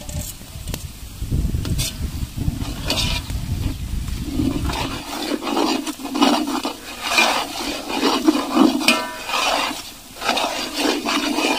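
A low rumble for about the first five seconds, then a perforated steel ladle stirring fried onions and chilli powder in a large aluminium pot: repeated scraping strokes, about one a second, over the sizzle of hot oil.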